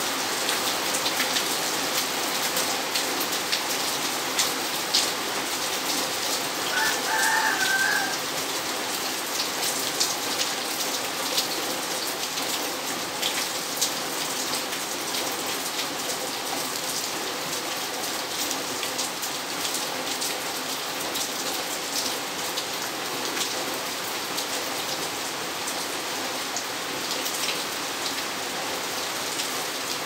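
Steady rain falling on a paved garden yard and leaves, with many sharp drip ticks. About seven seconds in, a rooster crows once, briefly.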